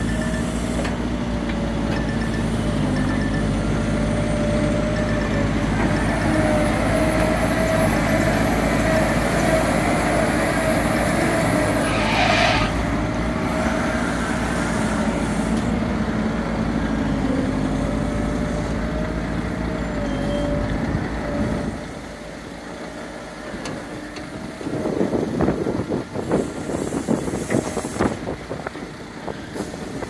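Diesel excavator engine running steadily under load with a steady whine over it while it digs soil, and a short hiss about halfway through. Near the end the engine sound drops away and a few seconds of rumbling clatter follow, as soil and stones are tipped into a dump truck's bed.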